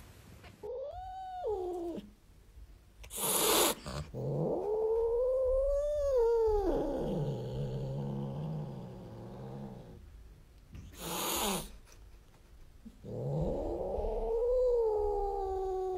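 Domestic cat yowling: three drawn-out calls that rise and fall in pitch, with two short bursts of noise between them.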